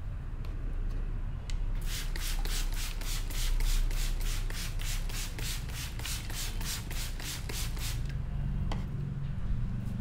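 A barber's hands rub quickly and rhythmically through the client's hair against the scalp, a scratchy stroke about four to five times a second, in the style of Indian head-massage hair cracking. The strokes start about two seconds in and stop about two seconds before the end, over a steady low hum.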